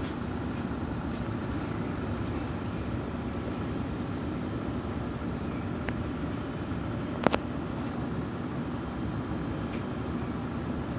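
Ship engine running with a steady low rumble, with a sharp click about seven seconds in.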